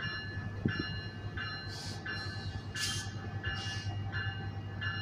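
Bell of an approaching Metrolink train led by an F125 locomotive, ringing at an even pace of about one and a half strokes a second over the train's steady low drone.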